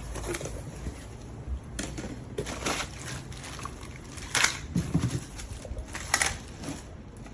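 Irregular rustling, crinkling and small knocks of packaging and parts being handled, with a louder burst about four and a half seconds in and another about six seconds in. No vacuum motor is running.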